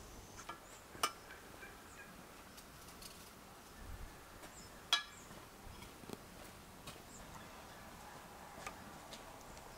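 Faint fowl calls in the background, with a few sharp clicks: one about a second in and a louder one about five seconds in.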